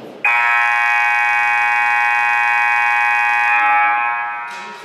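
Gymnasium scoreboard buzzer sounding one long steady blast as the game clock runs out, held for about three and a half seconds and then dying away in the echo of the hall.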